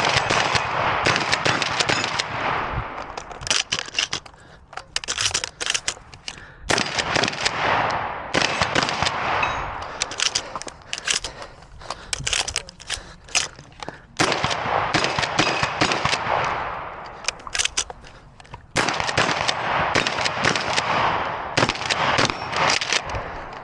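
Benelli Nova Speed pump-action shotgun fired repeatedly through a stage. Each shot rings out with a long echo, and quick clacks of pumping and shell handling come between shots, with a few short pauses.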